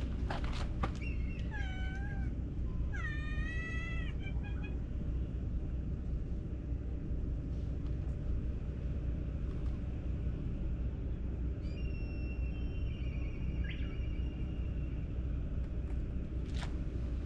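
A stray cat meowing twice over a steady low rumble: a short falling meow about a second in, then a longer one that rises and falls about three seconds in.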